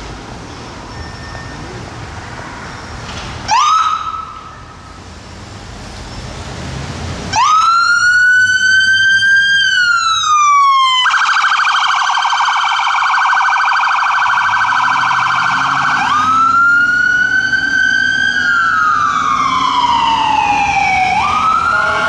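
Electronic siren on a Ford F-250 fire medic pickup responding to a call. There is a short rising chirp, then a loud wail that climbs and slowly falls, switching to a very fast warble. It goes back to a wail and turns to the fast warble again near the end. Low traffic noise comes before the siren starts.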